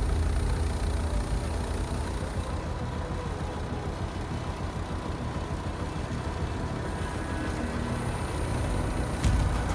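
An engine running steadily with a deep rumble, briefly surging louder near the end.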